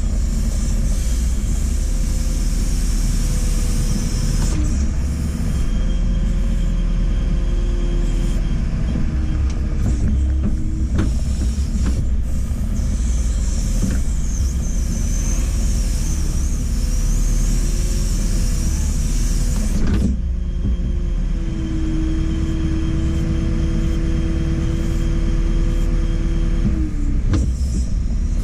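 JCB 4CX backhoe loader's diesel engine running under working load, with a steady low rumble and a whine that comes and goes as the hydraulics are worked. A few short knocks are heard along the way.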